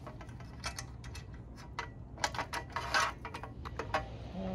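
Metal clicks and clinks from the steel frame of a Rabaconda tire changer as its leg levers are worked and set, in irregular bunches of sharp taps.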